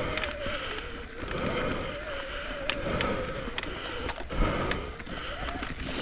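Full-suspension Commencal mountain bike riding a dirt forest trail, heard from a helmet-mounted camera: tyres crunching over dirt, small rocks and roots, with frequent clicks and rattles from the bike and a faint wavering hum underneath.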